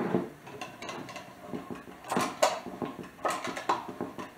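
1915 hand-cranked glass-jar butter churn being cranked: its gears and paddle clicking and clunking irregularly, a few knocks a second, as it churns cream.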